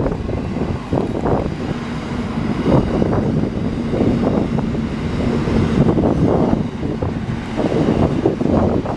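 Intermodal container freight train wagons rolling past close by: a steady, continuous rumble and clatter of steel wheels on the rails, with wind on the microphone.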